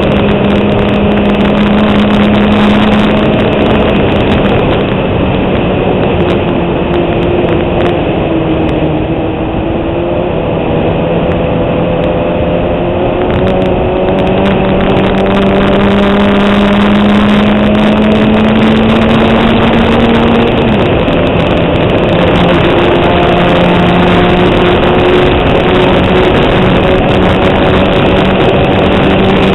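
Fiat 127 Abarth's engine running hard on track. The revs climb steadily for several seconds, then drop sharply at a gear change about two-thirds in and pick up again.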